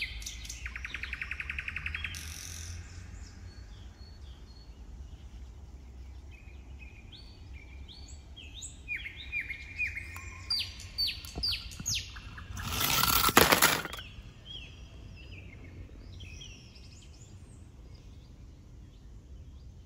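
Small birds chirping, a run of short, quick falling chirps. Just after them, a loud burst of noise lasting about a second and a half is the loudest sound. A fast rattling buzz sounds in the first two seconds.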